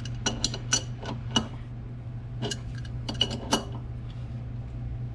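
A large adjustable wrench clinking against a metal hydraulic hose fitting: two quick groups of sharp, ringing metal clinks over a steady low hum.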